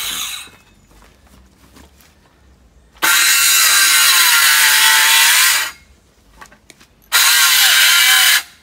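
Handheld power tool cutting in short runs. One run stops just after the start, a longer run of nearly three seconds begins about three seconds in, and a brief one comes near the end. The motor's pitch sags and recovers as it bites into the material.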